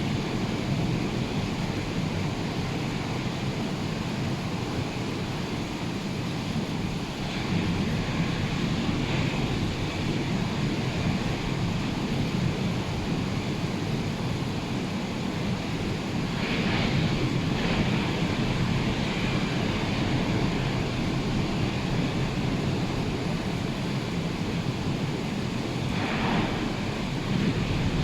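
Rough, hurricane-stirred surf breaking continuously, with wind buffeting the microphone. The wash swells louder about two thirds of the way in and again near the end as bigger waves break.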